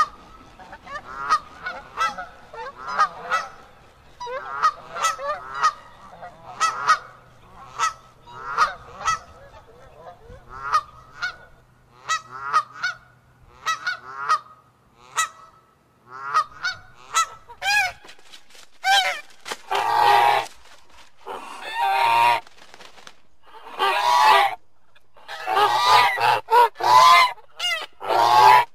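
Geese honking: a rapid series of short, separate honks over a faint low hum, then, about two-thirds of the way through, louder and denser bursts of several geese calling over one another.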